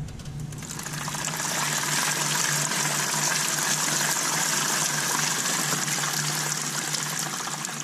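Water spraying off a spinning scooter front tyre and splashing against the bodywork and floor: a steady hiss of spray that builds about a second in.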